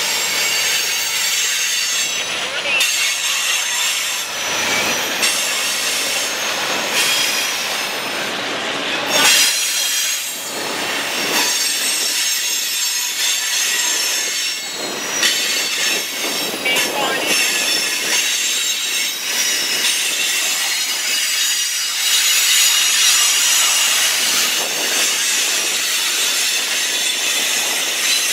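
Freight cars of a Norfolk Southern manifest train rolling past, their steel wheels squealing against the rail in high, steady tones over a continuous rumble of the passing train.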